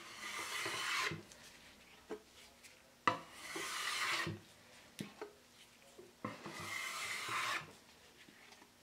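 A metal scraper pushed across an oak tabletop, lifting off softened citrus stripper and old finish: three long scrapes of about a second each. Each scrape starts with a sharp tap of the blade on the wood.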